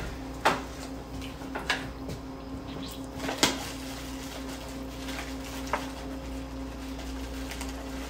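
Kitchen knife cutting raw chicken breast, knocking against the cutting board in a few sharp, irregular knocks, the loudest about three and a half seconds in, over a steady low hum.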